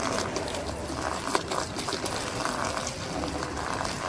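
Water poured from a cup onto a cardboard airplane, a steady splashing pour with scattered sharp spatters as it hits the cardboard and runs off onto the tarp below.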